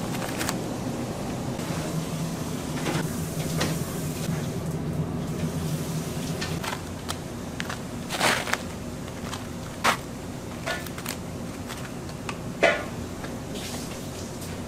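Kitchen work: a low steady hum that stops about six and a half seconds in, with scattered knocks and clatter, the sharpest about eight, ten and twelve and a half seconds in.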